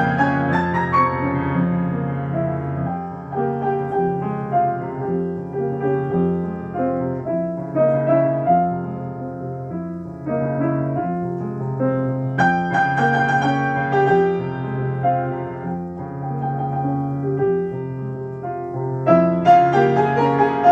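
Solo piano playing classical music: a steady low accompaniment under a melody line, growing louder and brighter about twelve seconds in and again near the end.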